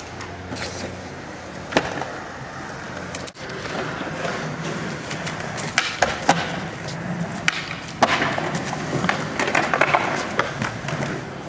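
Skateboard wheels rolling on concrete, with sharp clacks of the board popping and landing several times, the loudest about six and eight seconds in.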